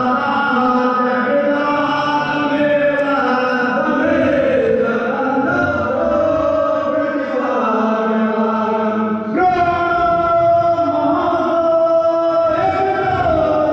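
Group chanting of a Hindu aarti hymn, sung in long held notes by many voices. A new phrase starts abruptly about nine and a half seconds in.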